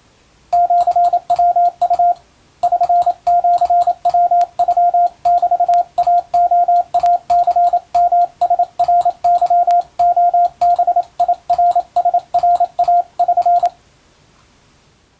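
Morse code (CW) tone sending Japanese kana (wabun) telegram practice text: one steady beep keyed on and off in short dots and longer dashes. It starts about half a second in, breaks briefly near two seconds, and stops about a second and a half before the end.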